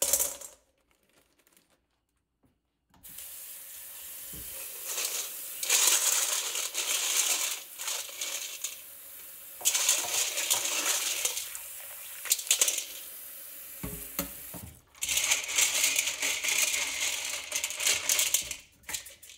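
Small mineral filter stones clink into a stainless steel bowl, then a tap runs into the bowl from about three seconds in while hands rub and stir the wet stones. The sound grows louder three times as the stones are worked.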